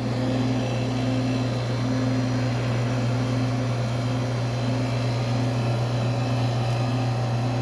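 HVAC air-conditioning training unit running, a steady low hum with a fainter wavering tone above it.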